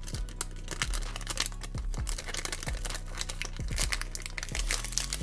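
Clear plastic shrink-wrap crinkling and tearing as it is peeled off a 4x4 speed cube, a busy irregular crackle, over a low background music beat.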